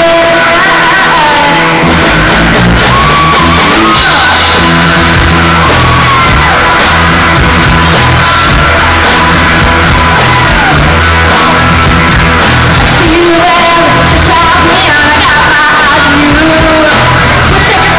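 Live rock band playing loud, with electric guitars, drums and bass under female vocalists singing in a shouted rock style.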